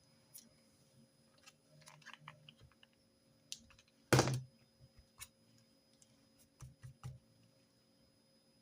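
Desk note-taking sounds: scattered small clicks and taps, with a quick run of light ticks about two seconds in and one louder, longer noise about four seconds in, then a few more clicks near seven seconds.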